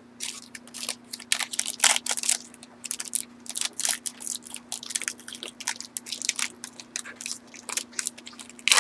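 Foil wrapper of a trading-card pack crinkling as it is handled and torn open, a dense run of irregular crackling rustles.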